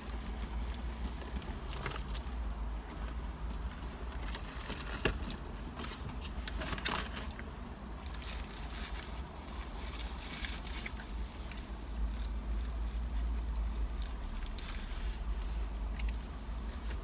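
Steady low rumble inside a parked car's cabin, with scattered crinkles and clicks from paper food wrappers and eating.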